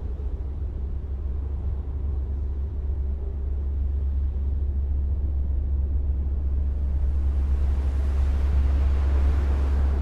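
A low, steady rumbling drone with a hiss that swells and builds over the last few seconds, like the rising intro of a backing track.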